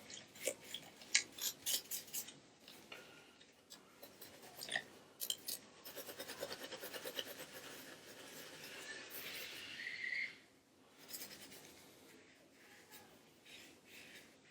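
A sponge scrubbing small plastic controller buttons and triggers in a bucket of water: soft rubbing with many light clicks, busiest and steadiest through the middle.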